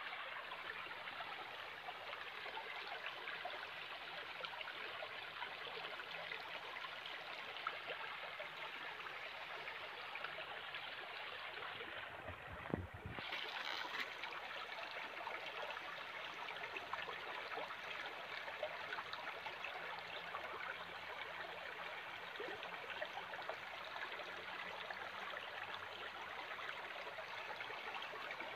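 Shallow stream running over stones, a steady trickling rush, briefly muffled once about halfway through.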